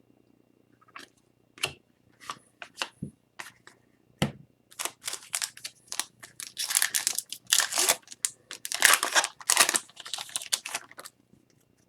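Trading card pack wrapper being torn open and crinkled as the cards are handled: a few scattered clicks at first, then a busier stretch of crackling rustles in the middle.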